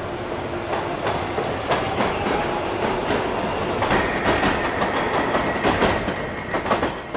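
Train running on rails, its wheels clicking over the rail joints, with a thin steady whine that joins about four seconds in.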